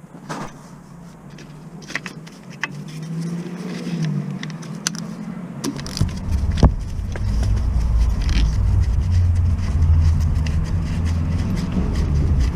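Motor vehicle rumble building up over several seconds and getting heavy about halfway through, with scattered clicks and scrapes.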